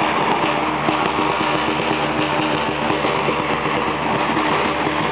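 Loud, dense drumming from the large drums of a Romanian bear-dance (dansul ursilor) troupe, a continuous roll with no separate beats standing out.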